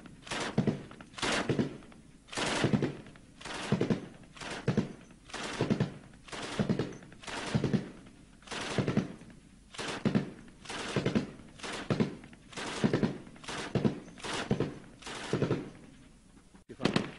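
Kord 12.7 mm heavy machine gun firing, with single shots and pairs about twice a second, each heavy report trailing off in a short echo.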